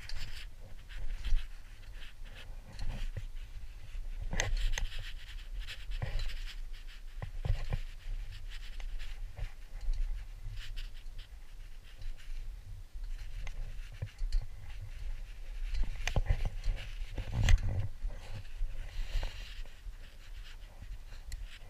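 A climber's heavy breathing, a breath every second or two, with scattered metallic clinks and scrapes of crampons and gear on a metal crevasse ladder and fixed rope.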